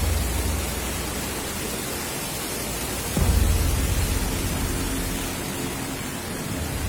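Strong storm wind roaring and buffeting the microphone, as a steady rushing noise with a deep rumble, and a harder gust hits about three seconds in.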